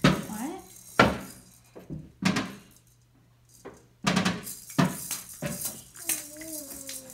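Children's toys knocking and clattering, several sharp hits spaced about a second apart. Near the end a small child's voice wavers up and down for about a second.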